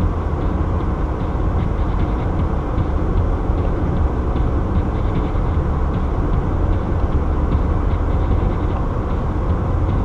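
Steady road noise inside a car cruising at highway speed: a low, even rumble of tyres on the pavement and the running car.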